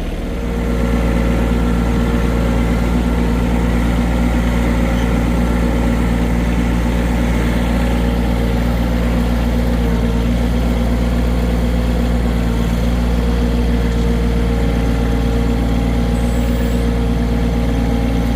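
John Deere 1023E compact tractor's three-cylinder diesel engine running steadily under throttle, stepping up in level about half a second in.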